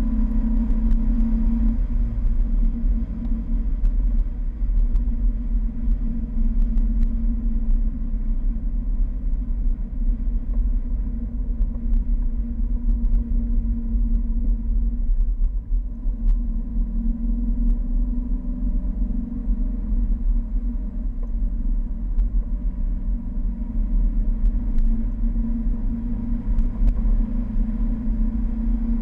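Four-cylinder engine of a Fiat 1200 Spider running at a steady cruise, its note dipping briefly about halfway through and picking up again, over a heavy low rumble of wind and road noise.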